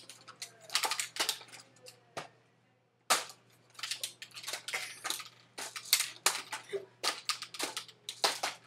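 Airsoft M4 carbine (electric gearbox rifle) firing a string of sharp snapping shots in quick clusters, with a pause of about a second partway through.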